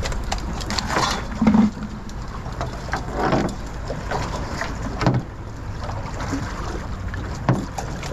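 Steady wind rumble and water moving around a small fiberglass skiff, with a few dull knocks on the deck as a fish is handled, the loudest about one and a half seconds in.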